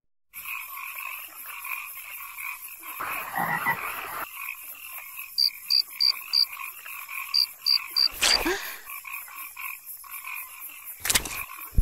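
Pond ambience of frogs croaking in a steady, pulsing chorus, with two runs of short high chirps, four and then three, around the middle.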